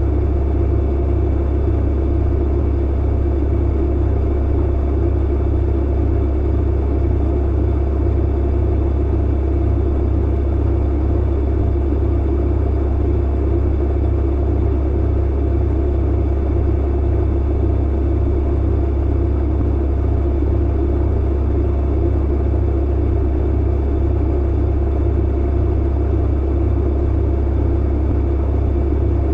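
Clothes dryer running with a steady low hum and rumble.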